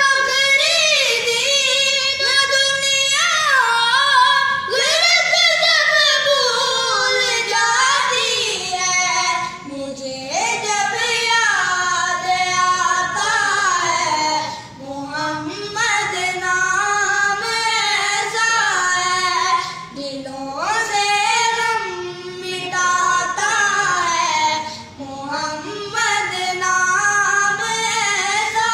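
A naat, an Islamic devotional song, sung by a single high voice in long, ornamented phrases that glide between notes, with brief breaths between lines.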